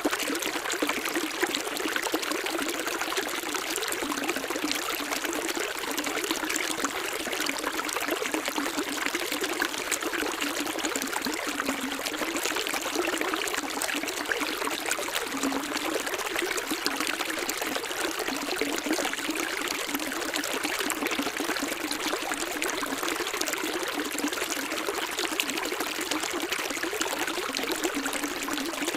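Running water: a stream trickling and splashing steadily, with no pauses.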